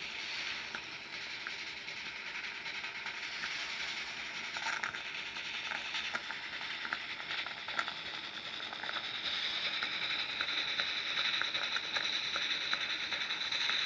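Live steam model locomotive running on blocks: a steady hiss of steam with a quick run of small clicks from the exhaust, and a higher, steadier hissing tone coming in about nine seconds in.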